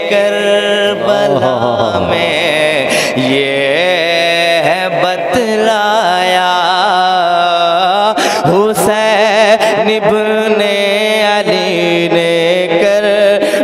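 A man singing a naat, drawing a line out into long ornamented notes whose pitch wavers and slides, over a steady held drone.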